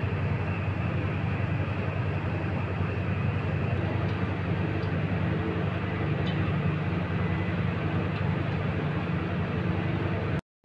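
Steady rumble and hiss of a gas stove burner heating a pot of boiling water with potato chunks in it. It cuts out briefly just before the end.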